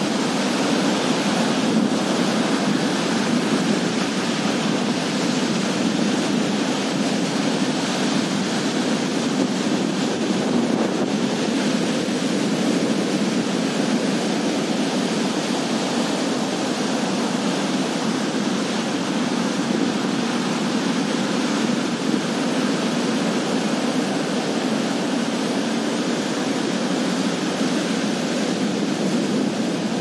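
Sea surf breaking in rows just offshore and washing up a sandy beach: a steady, unbroken rush of water.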